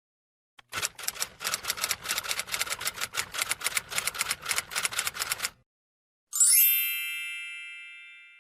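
Typewriter sound effect: rapid key strikes, about six a second for some five seconds, then a pause and a single bright bell ding that rings and fades slowly.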